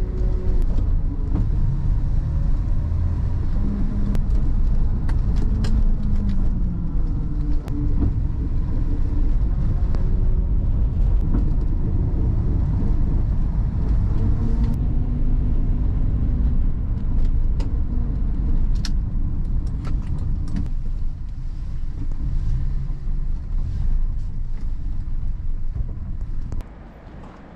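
A 1970s Nissan Skyline 'Kenmeri' (C110) driving: engine running through changing revs over a heavy low road rumble, with a few sharp clicks and rattles. Near the end the sound drops sharply to a faint rumble.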